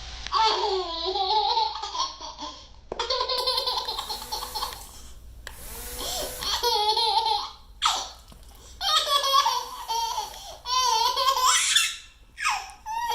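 High-pitched laughter in several bursts with short pauses between them.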